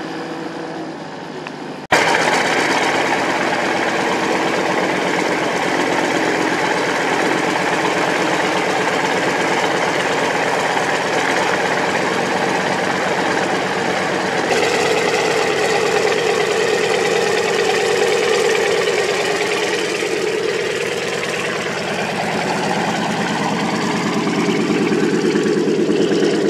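Antonov An-2 biplane's nine-cylinder radial engine running, cutting in suddenly about two seconds in. About halfway through it changes to a strong, rapidly pulsing drone that dips and then rises again near the end.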